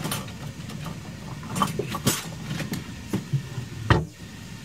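Kitchen utensils clinking and knocking as a spoon is fetched: several separate clicks, with a louder knock near the end, over a steady low hum.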